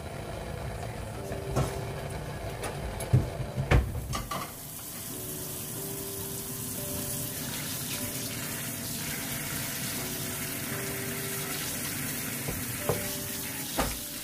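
Tap water running into a kitchen sink over pork backbone pieces in a colander as they are rinsed by hand. There are a few knocks from the meat and colander being handled in the first four seconds, then a steady splashing hiss of the running water.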